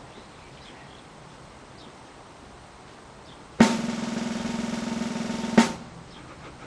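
A drum roll of rapid strokes about two seconds long, starting suddenly about three and a half seconds in and ending on a sharp accented stroke, building suspense before the watermelon-splitting swing.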